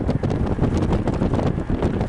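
Wind buffeting the camcorder's microphone: a loud, gusty rumble of noise, heaviest in the low end, with irregular crackles.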